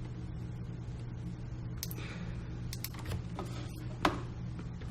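Several computer mouse clicks and keyboard taps, the loudest about four seconds in, over a steady low electrical hum.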